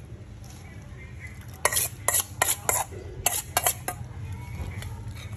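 Metal spoon scraping and clinking against a stainless steel bowl while scooping up rice: a quick run of about eight sharp scrapes between a second and a half and four seconds in.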